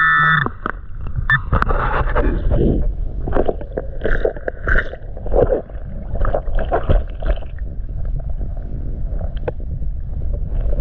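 A waterproof metal-detector pinpointer's steady electronic tone cuts off about half a second in. Then come muffled underwater scraping and irregular knocks as a gloved hand digs and fans gravel and silt off creek bedrock to reach a lead target.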